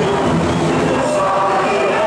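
Many voices singing a song together with music, over general crowd noise in the stadium stands.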